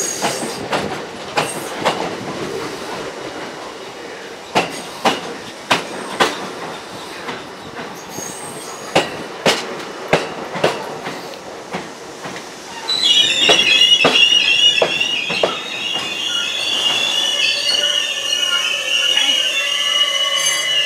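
R42 subway train pulling out: its wheels clack irregularly over the rail joints, then about two-thirds of the way through a loud, wavering high-pitched wheel squeal sets in and holds as the cars gather speed.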